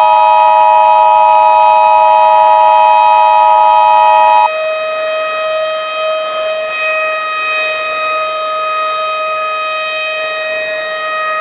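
Steady electronic earthquake-warning alarm made of several held tones sounding together. About four and a half seconds in, the higher pair of tones cuts out and the alarm carries on, a little quieter, on its lower tone.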